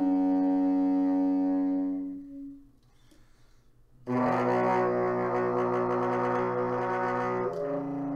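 Tenor saxophone playing a long held note that fades away about two seconds in. After a pause of about a second and a half, a loud held note comes in and moves to another note near the end.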